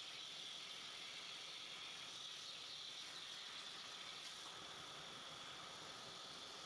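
CNC plasma cutter's torch hissing steadily as it cuts through steel plate, a high, even hiss with no breaks.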